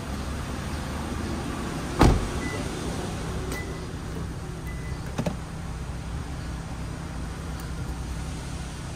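Steady low hum of an electric motor from the Toyota Alphard's power second-row captain seat as its side switch is pressed, with one sharp thump about two seconds in and a smaller click about three seconds later.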